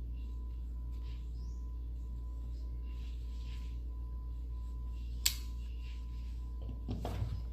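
A folding utility knife being handled, with one sharp click about five seconds in and brief handling noise near the end, over a steady low hum.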